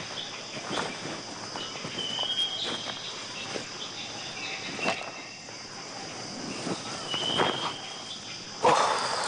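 Steady high drone of crickets and other insects, with footsteps of several people walking on dry, stony ground. Short high whistles come twice. A louder rush of rustling noise starts near the end.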